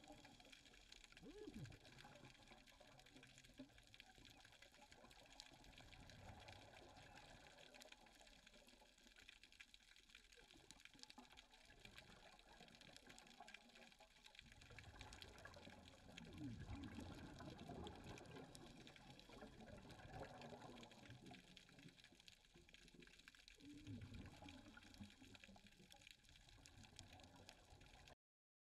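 Faint underwater sound: a scuba diver's exhaled bubbles gurgling in low swells every few seconds over a steady fine crackle.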